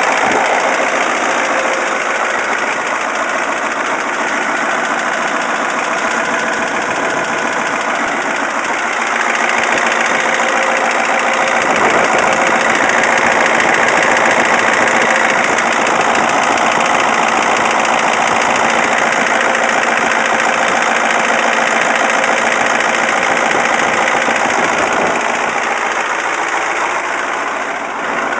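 Caterpillar 3208T turbocharged V8 diesel running with a rattling knock that the owner cannot pin down: fuel knock, injector knock, or a broken piston or rings. The noise seems to stop when the fuel line to cylinder 4 is cracked loose, and it followed running for hours with the injection pump too far advanced.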